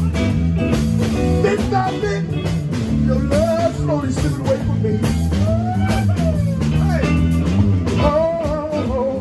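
Live blues band playing: electric guitar, electric bass and drums, with notes bending up and down over a steady groove.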